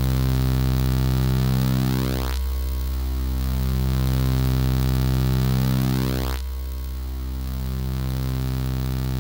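ZX Spectrum 48K one-bit beeper music playing a buzzy sustained note. Its tone shifts slowly with a phasing, sweeping quality, and the note changes abruptly twice.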